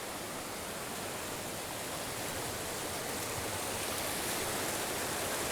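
Steady rush of a small mountain creek's flowing water, the creek running high and swollen after days of rain; it grows slightly louder toward the end.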